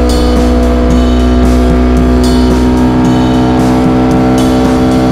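KTM Duke 200's single-cylinder engine through an SC Project SC1-R aftermarket exhaust, running loud at steady revs while riding, its pitch holding even.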